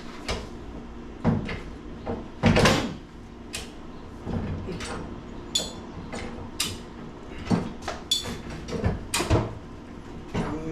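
Irregular knocks, clunks and scrapes from a boat cart being lifted and worked out from under a small fishing boat, the loudest a longer scrape about two and a half seconds in.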